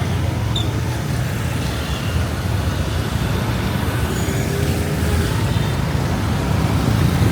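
Steady rumble of busy road traffic, vehicle engines running as they pass.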